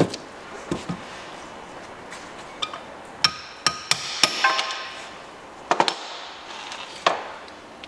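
Hammer striking a drift to knock the oil seal out of a Ford 1.8 TDCi's aluminium timing cover casing. It gives about eight sharp metallic taps at irregular spacing, a few of them close together in the middle, with some ringing briefly.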